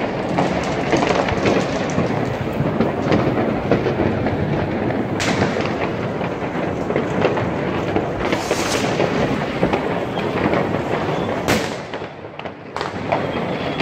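New Year's Eve fireworks and firecrackers going off without a break: a dense crackle of rapid bangs, with a few louder bangs about five, eight and a half and eleven and a half seconds in. It eases off briefly near the end, then picks up again.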